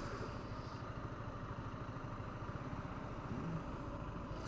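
Yamaha MT-125 single-cylinder four-stroke engine running steadily at low revs, without revving, faint under the traffic noise.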